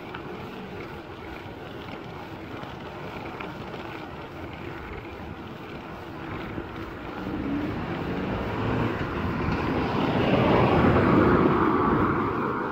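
Wind buffeting the microphone as a bicycle rolls along a road, with a car approaching and passing: its noise grows from about halfway through to a peak near the end, then eases off.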